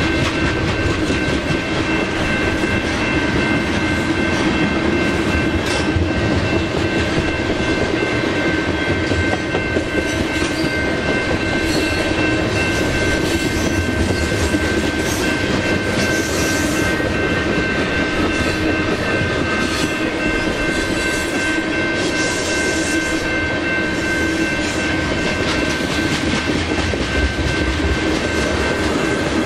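Freight train cars rolling past with a steady rumble and clickety-clack of wheels on rail. A few steady high tones run under it, with no break or change.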